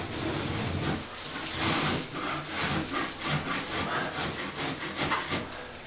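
Hand scraper blade scraping water-softened popcorn ceiling texture off the drywall in repeated rasping strokes.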